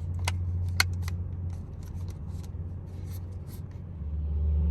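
Plastic battery cover being fitted onto the back of a mobile hotspot: scattered light clicks and rubbing of plastic on plastic as it is pressed into its clips, over a steady low hum.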